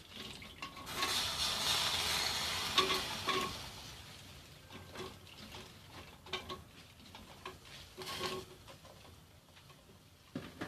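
Artichoke pieces tipped into a pressure cooker of meat and water: a couple of seconds of splashing and rustling with clinks of metal, then scattered light knocks and stirring in the pot.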